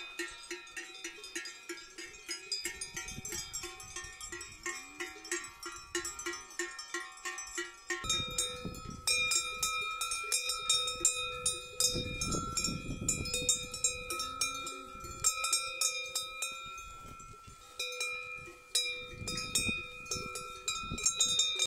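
Cowbells on grazing cows clanking and ringing as the animals walk. Many bells jangle together at first, then from about eight seconds in a nearby bell rings out more clearly with a steady tone over the clanks.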